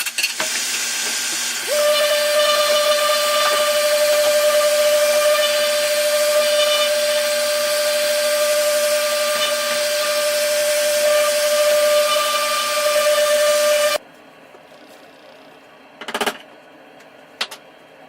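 Gas torch burning with a steady hiss and a whistling tone, charring a wood slab's surface; it cuts off suddenly about two-thirds of the way in, followed by two short knocks.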